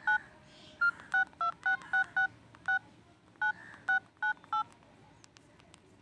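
Smartphone dialer keypad touch-tones (DTMF) as a phone number is dialed: about a dozen short two-note beeps in an uneven rhythm over the first four and a half seconds, followed by a few faint clicks.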